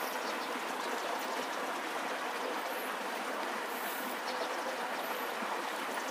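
Steady, even rushing noise of outdoor ambience, with a few faint high chirps now and then.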